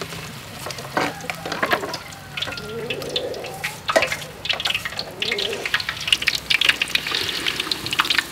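Flour-battered chicken drumsticks sizzling and crackling in hot oil in a wok as more pieces are lowered in; the crackle grows denser about halfway through. A few sharp clinks of metal tongs against a steel bowl.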